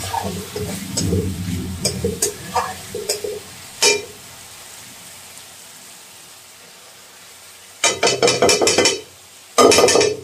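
Metal spatula stirring and scraping masala in an aluminium kadai, with light clicks and a low frying sizzle. About eight seconds in, raw prawns go into the hot pan and it sizzles loudly in three short bursts.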